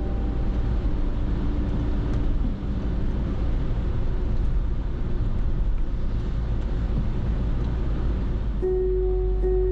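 A car driving on a wet road in the rain: steady tyre and road noise with a deep rumble. Soft held music tones fade out about two seconds in and come back near the end.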